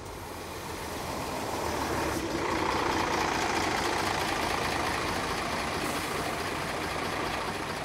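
Street traffic: vehicle engines running steadily, the sound swelling over the first couple of seconds. Near the end a city bus is idling close by.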